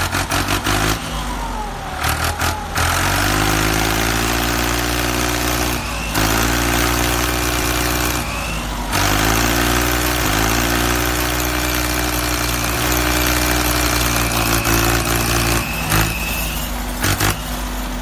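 A vehicle engine sound running steadily, its pitch stepping up and down several times, with a thin whine that rises slowly, twice.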